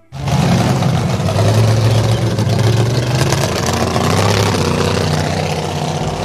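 Vehicle engine sound effect: a motor running steadily with a deep drone that cuts in abruptly.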